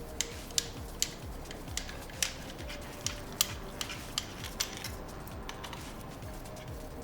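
Metal hand tools clicking and clinking against the engine while bolts are undone, with about ten sharp irregular clicks that thin out after about five seconds. Faint background music runs under them.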